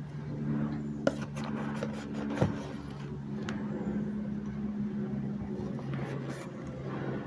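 Steady low drone of a car running, heard from inside the cabin, with a few sharp clicks or crunches about one, two and a half, and three and a half seconds in.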